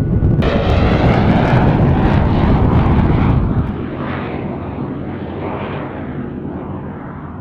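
Jet engines of a McDonnell Douglas MD-11 freighter passing close by, a loud rushing roar with sweeping, phasing tones. The hiss jumps up suddenly about half a second in, then the sound drops about three and a half seconds in and fades as the aircraft moves away.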